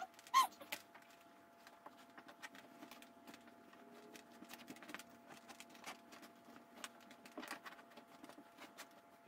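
Light clicks, taps and rustling from handling the parts of a wooden bassinet and its fabric liner, with a short squeak about half a second in and a fainter one about 7.5 s in.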